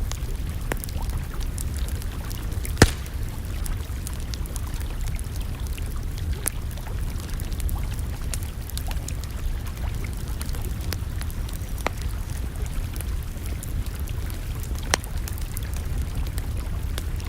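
Campfire crackling, with scattered sharp clicks and a louder pop about three seconds in and another near fifteen seconds, over a steady low rumble.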